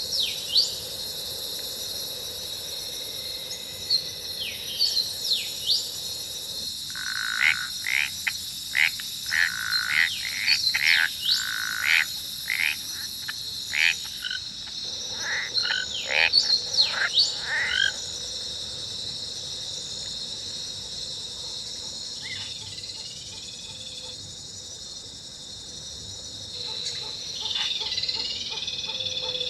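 Jungle ambience sound-effect track: a steady high-pitched insect drone, with strange frog-like croaking calls and chirps layered over it. A quick run of croaks comes about a quarter of the way in and more calls around the middle; it thins out before calls return near the end.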